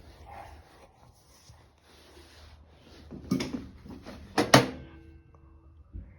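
Faint rustling, then two clusters of loud knocks and clanks about a second apart, the second followed by a short ringing tone, and a single dull thud near the end.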